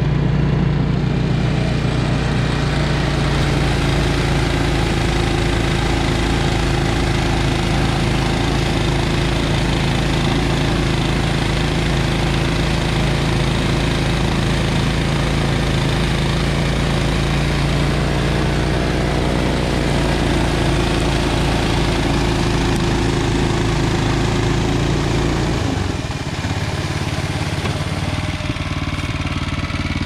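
Honda HSS928 two-stage tracked snowblower's 270 cc single-cylinder engine running steadily under load while its auger and impeller churn and throw heavy wet snow, slush and ice without clogging. Near the end the deepest part of the sound drops away and the running note changes and gets a little quieter.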